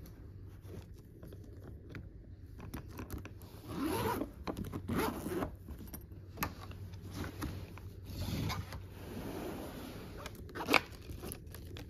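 Zipper being pulled around a hard-shell suitcase to unzip it, in several rasping pulls, with a sharp click near the end.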